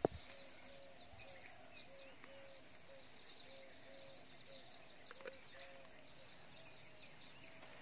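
Birds chirping in the background, with a run of short, even low calls repeating two or three times a second. A sharp click right at the start is the loudest thing.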